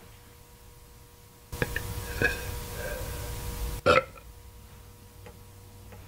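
A woman burping: one long, noisy burp starting about a second and a half in, then a short, sharp burp near four seconds.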